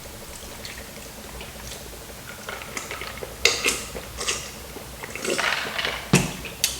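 Eating at a table: a utensil clinking and scraping against a dish, several short clicks in the second half with one heavier knock near the end.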